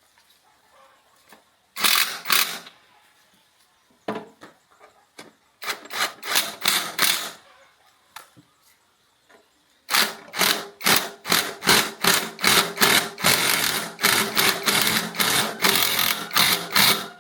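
Quick, evenly repeated scraping strokes of hand-tool work, about three a second, in three runs, the last and longest filling the second half.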